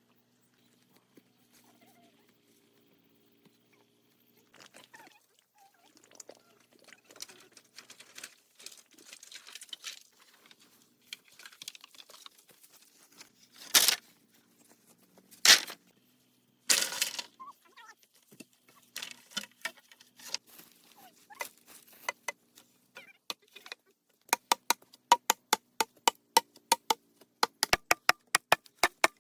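Sharp knocks and strikes on something hard: scattered light taps, then three heavy strokes a second or so apart, and near the end a fast, even run of about five strikes a second, like rapid chopping.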